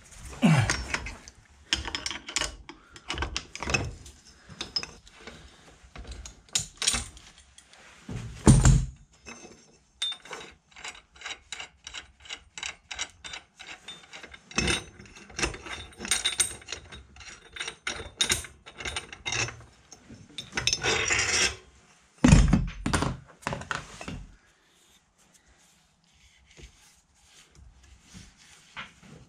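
Metal-on-metal clicking, knocking and scraping from a home-made pipe puller being worked to draw an angular-contact spindle bearing into a mini lathe headstock. It includes a long run of rapid small clicks, with louder scraping spells now and then. It goes almost quiet near the end.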